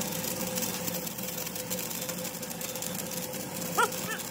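A workshop machine running steadily with an even hum and hiss. A short, high chirp cuts in near the end.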